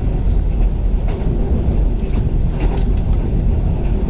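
36WED electric multiple unit running along the track: a steady low rumble with a few faint clicks from the wheels over rail joints.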